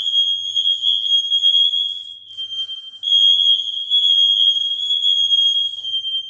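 Apartment smoke alarms, every one in the unit sounding together, a high, ear-hurting tone held almost without break, with a weaker stretch just past two seconds in and a short break near the end. They keep sounding with no fire or smoke to be found, a false alarm.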